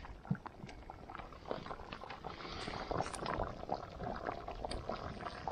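A pot of curry bubbling at a boil over a wood fire: a dense stream of small pops and bubbling, getting busier about a second and a half in.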